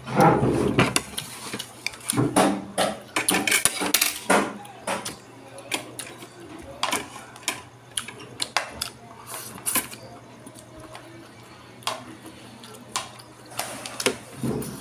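A person eating shredded bamboo shoots and rice by hand, mouth close to the microphone: irregular wet smacking and chewing clicks, with the rustle of the food being picked up and handled, over a faint steady hum.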